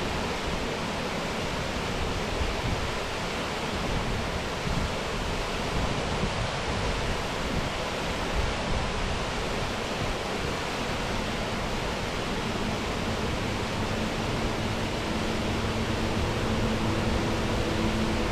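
Eas Fors waterfall rushing: a steady, even noise of falling water. About two-thirds of the way through, a steady low motor-like hum comes in under it and grows slightly louder.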